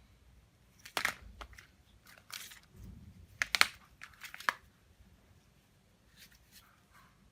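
Short crackling and scraping handling sounds of a damaged phone being worked on by hand, in separate bursts, loudest about three and a half seconds in.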